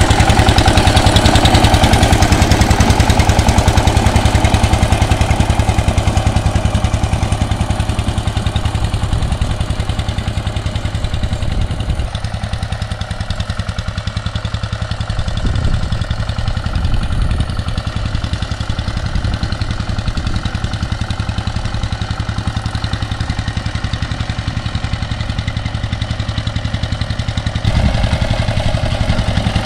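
Two-wheel power tiller's single-cylinder diesel engine running steadily under load with an even, rapid firing beat as it tills soil. It is fainter through the middle and grows louder again near the end as the machine comes closer.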